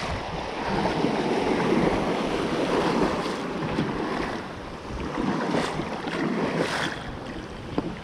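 Shallow surf washing and foaming over a rocky seabed, with wind noise on the microphone.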